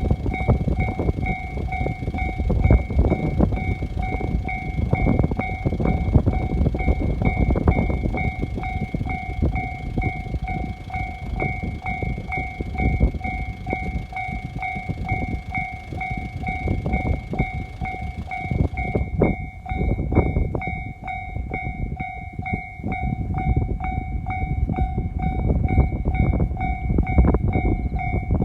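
Japanese level-crossing alarm ringing in a steady, evenly repeating ding while a KiHa 40 series diesel railcar passes, its rumble and wheel clatter over the rail joints running underneath.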